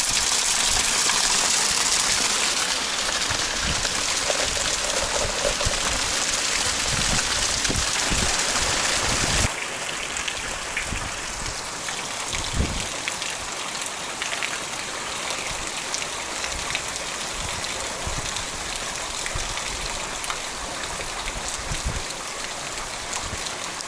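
Heavy rain pouring steadily, with scattered drops thudding close by. About nine and a half seconds in, it cuts suddenly to a somewhat quieter stretch of rain.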